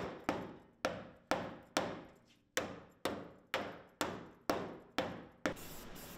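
A hammer striking the sheet-steel inner fender seams of a Nissan 240SX, flattening them, about eleven ringing blows at roughly two a second. Near the end the blows stop and a steady hiss starts.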